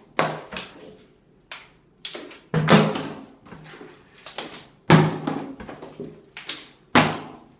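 A partly filled plastic water bottle being flipped again and again, hitting a marble countertop with a hollow thud and clattering bounces. Three heavy landings come about two seconds apart, with lighter knocks in between.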